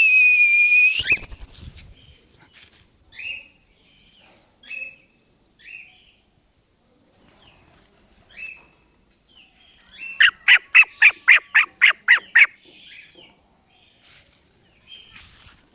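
Cockatiel calling in flight: a loud held whistle at the start, then short rising chirps about once a second, and a quick run of about a dozen repeated calls near the end.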